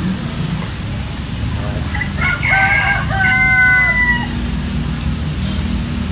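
A rooster crowing once, a drawn-out call of about two seconds in the middle, over a steady low mechanical hum.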